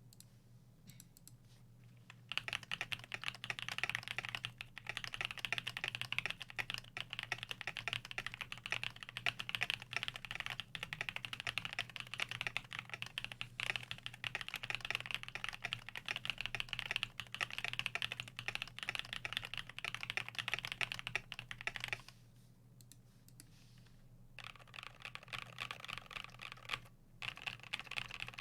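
Fast, continuous typing on a custom 75% mechanical keyboard with a brass plate, lubed Everglide Dark Jade switches, TX springs and PBT dye-sub keycaps. The typing starts about two seconds in, stops for a couple of seconds near the two-thirds mark, then resumes.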